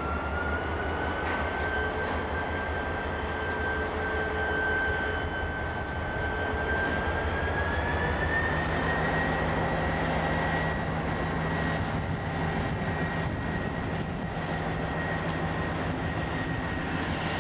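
Diesel locomotives running while moving slowly, a deep throbbing engine rumble under a high whine that rises in pitch twice, about two seconds and about nine seconds in, as the engine is throttled up.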